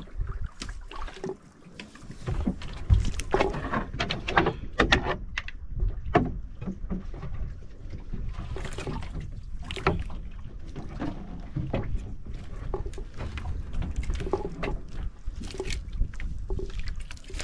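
Water lapping and splashing against the hull of a small outrigger boat drifting with its engine off, with irregular knocks and rustles from fishing lines and gear being handled on board.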